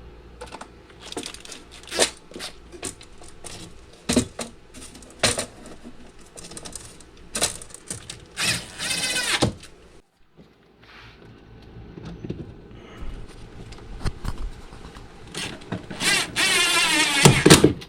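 Hands-on work at a workbench while wiring in a power feed: scattered clicks, knocks and rattles of wire, tools and parts being handled. Two longer noisy sounds of about a second each come near the middle and near the end; the one near the end is the loudest.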